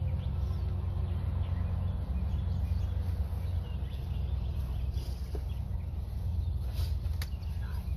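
Open-air ambience: a steady low rumble with faint bird chirps over it, and a single sharp click about seven seconds in.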